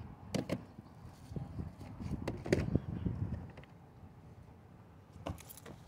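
Handling noise on a wooden pier: irregular light knocks and clicks, the loudest about two and a half seconds in, over a low rumble.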